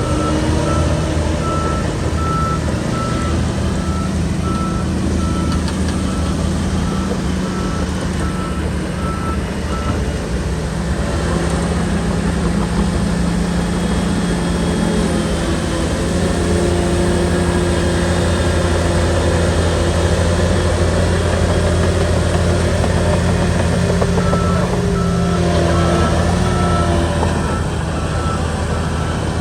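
Shantui bulldozer's diesel engine running steadily, its pitch shifting as it works in the middle stretch. A high, evenly repeating reverse alarm beeps for the first ten seconds or so and starts again near the end, the sign of the dozer backing up.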